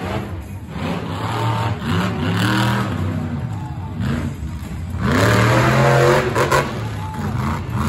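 Monster truck engine revving hard in repeated rising and falling bursts as the truck drives the arena. It is loudest about five seconds in, as the truck launches off a jump.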